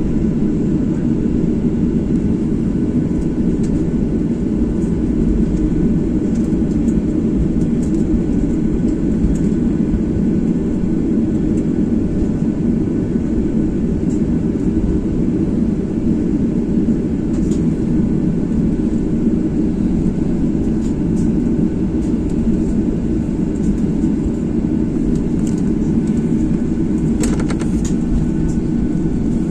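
Steady low rumble of a Boeing 737-800 airliner cabin, engine and air-conditioning noise heard from a passenger seat, with one brief click near the end.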